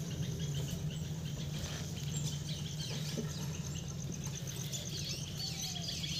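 Forest insects trilling steadily in a high, fast, even pulse, with scattered short bird chirps. A low steady hum runs underneath.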